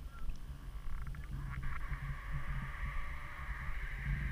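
Water lapping and sloshing around a camera held at the water surface, heard as a muffled, uneven low rumble. A steady hiss comes in about a second and a half in.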